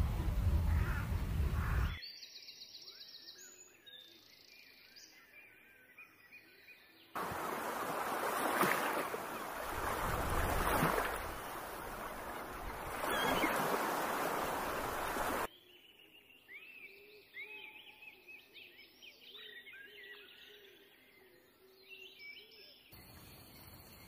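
Small birds chirping, then surf washing up on a beach for several seconds, then a busier run of bird chirps. Near the end a steady high-pitched tone sets in.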